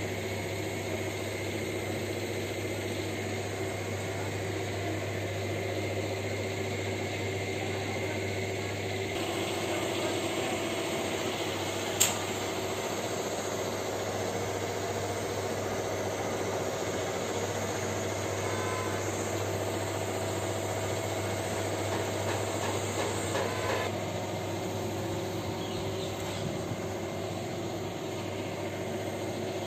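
Steady low mechanical hum, with a single sharp click about twelve seconds in.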